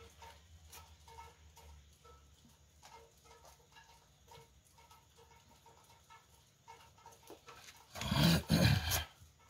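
Mostly faint, with soft short sounds every half second or so; about eight seconds in, a loud animal call lasting just over a second.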